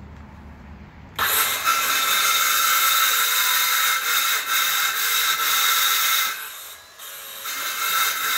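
Small circular saw switched on about a second in, its blade whining as it cuts shallow passes across the underside of a composite decking board. The cutting sound drops for about a second past the middle and then picks up again.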